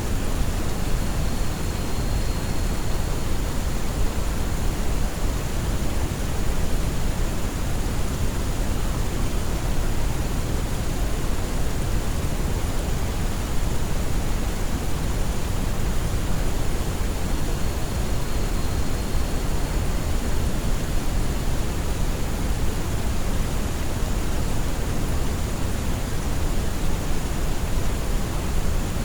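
Steady, unbroken sleep noise, a smooth even hiss weighted toward the deep end like pink noise, with no rhythm and no changes.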